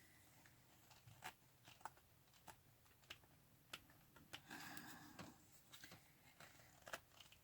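Faint handling of a water hose being worked onto a sink spigot: small clicks about every half second or so, with a brief rustle around the middle.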